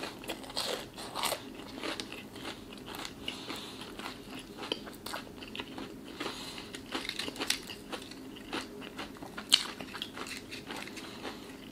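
Chewing a mouthful of crispy breaded Popeyes chicken nugget: a run of irregular crunches and crackles, with one sharper crunch about nine seconds in.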